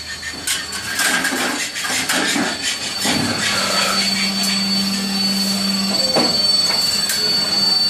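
Roll forming machine running, a steel channel profile feeding through its forming rolls with a metallic squeal and a steady high whine. Scattered clicks and knocks run throughout, with a low hum in the middle and a sharper knock about six seconds in.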